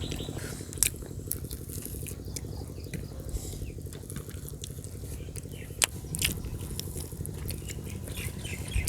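A person biting and chewing food, with scattered sharp crunchy clicks, over a steady low hum.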